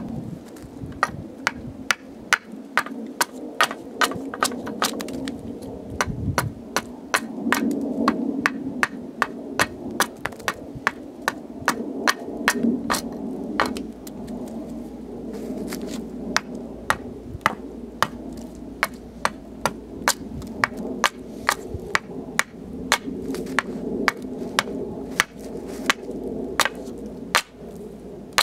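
Hatchet chopping repeatedly at an upright hazel pole, hewing it flat to rough out a ski: a quick, steady run of sharp wooden chops.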